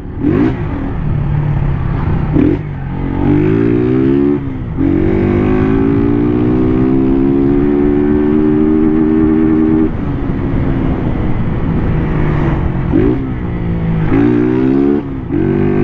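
Honda motorcycle engine heard from the rider's seat, pulling up through the gears: its pitch climbs and drops at each shift, holds a steady drone for several seconds, falls back when the throttle eases off about ten seconds in, then climbs again with another shift near the end.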